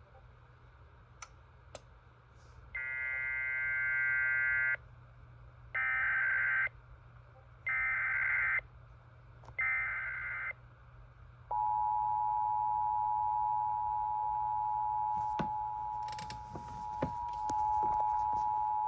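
Emergency Alert System tones from a SAGE EAS ENDEC: four bursts of SAME digital header data encoding a Child Abduction Emergency. The first burst lasts about two seconds and the other three about a second each, a second apart. Then, about halfway through, the steady two-tone EAS attention signal (853 and 960 Hz) starts and holds, with a few clicks over it.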